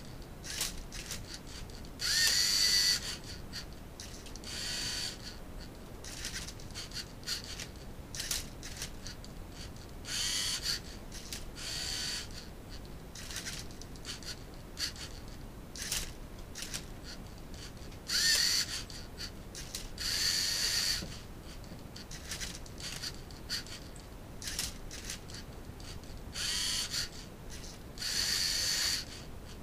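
LEGO Mindstorms NXT cube-solving robot at work: its servo motors whirr in short bursts every few seconds as it tips and turns a Rubik's cube, with light plastic clicks and clacks in between.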